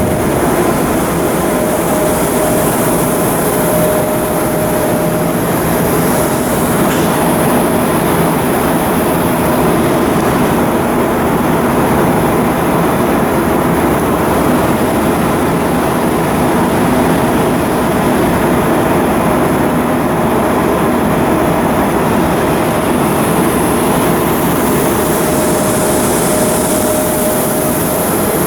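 Steady, loud mechanical din with a faint constant hum running through it.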